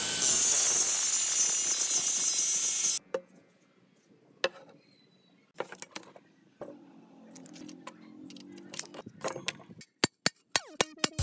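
Angle grinder grinding the rusty steel of an old bow, stopping abruptly about three seconds in. Then a few scattered light knocks from the metal bow being handled, and near the end a quick run of sharp hammer blows on the steel bow.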